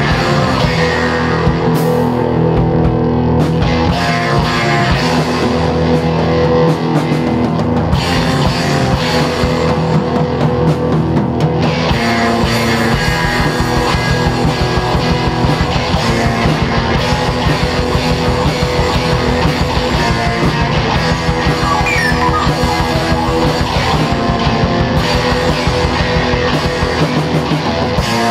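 Punk/hardcore rock recording played by a full band: distorted electric guitars, bass and drum kit, loud and unbroken.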